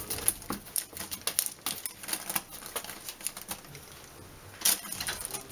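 Irregular light clicks and taps, with one louder click near the end.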